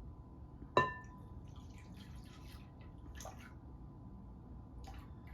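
A single ringing clink of glass or crockery about a second in, then a faint trickle of milk being poured into a mixing bowl, with a soft tap near the middle.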